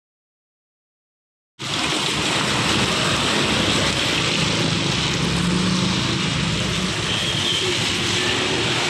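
Dead silence for about a second and a half, then a steady rushing noise sets in abruptly and carries on evenly, with a faint low hum beneath it.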